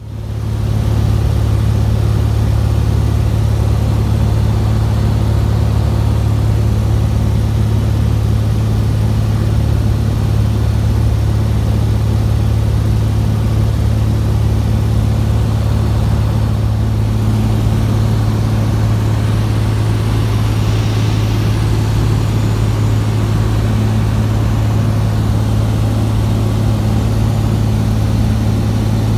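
Light bush plane's piston engine and propeller droning steadily in flight, heard from inside the cabin as a loud low hum that holds one pitch. It fades in from silence right at the start.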